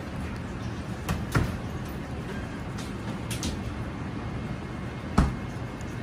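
Chinese cleaver slicing through a block of pressed ham, knocking on a plastic cutting board as each slice comes free: two sharp knocks a little over a second in and a louder one near the end. A steady low hum runs underneath.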